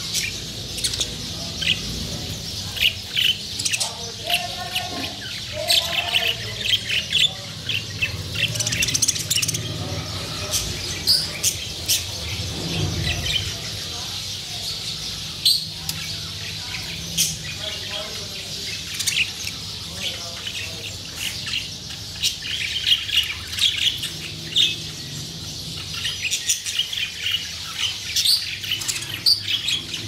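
A cage of budgerigars chattering: many short, sharp chirps and warbling calls, over a steady low hum.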